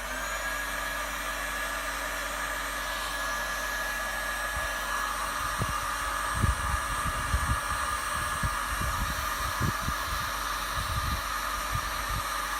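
Electric heat gun switched on and blowing steadily, shrinking heat-shrink tubing onto a crimped battery cable terminal. A few low knocks from the work are heard from about halfway through.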